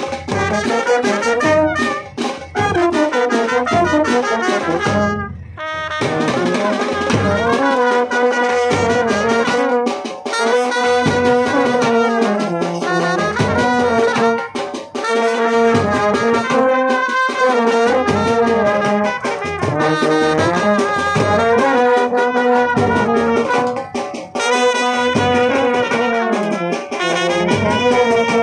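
Indian brass band (band baja) playing a welcome tune, with trumpets and trombones carrying the melody in long held notes; the playing breaks off briefly about five seconds in, then resumes.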